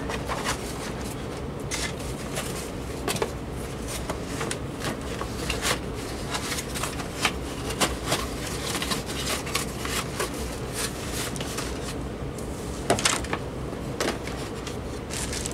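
Handling noise as a rotary-dial desk telephone and its papers are packed into a cardboard box: cardboard and paper rustling with scattered clicks and knocks, over a steady low hum.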